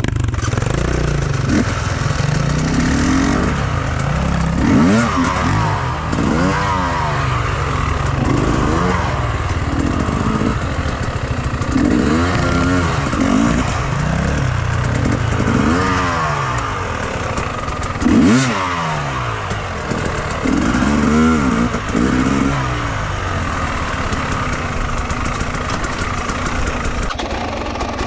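Enduro motorcycle engine running and revving up and down over and over, about a dozen rises and falls in pitch, as is typical of a bike ridden over rough off-road ground.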